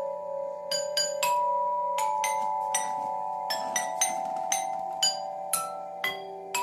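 Musical doorbell chime playing a patriotic tune: a melody of struck, bell-like notes, about two a second, each ringing on under the next.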